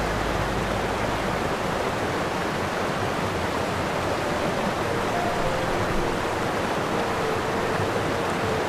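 Steady rushing of flowing water, an even hiss without separate splashes, with a few faint short tones in the background from about halfway.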